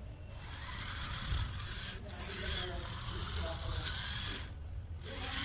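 Rubber tyres on a small four-wheel robot car, driven by BO plastic gear motors, rubbing and scrubbing across a plywood sheet as the car turns. The noise stops briefly near the end.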